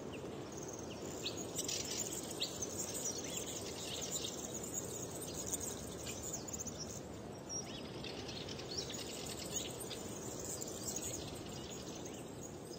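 Outdoor nature ambience: a steady background hiss with many short, high bird chirps scattered throughout.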